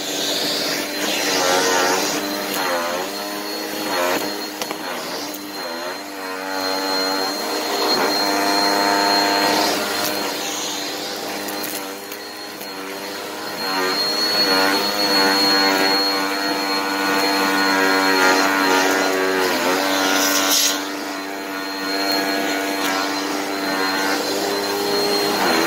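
Vacuum cleaner running through a narrow crevice tool worked over carpet: the motor's hum and whine slide up and down in pitch as the nozzle is pressed into the pile and lifted, over a thin steady high whistle. A few short noisy bursts stand out as crunchy dirt is sucked up the tool.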